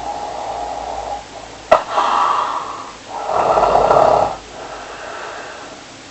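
Snoring: a run of noisy breaths about a second long each, the loudest one about three and a half seconds in. A single sharp click comes just before two seconds in.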